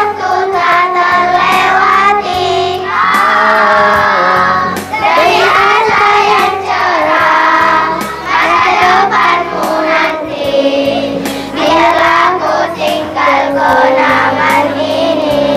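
Children's choir singing an Indonesian farewell song together, the melody carried in phrases with short breaks between lines.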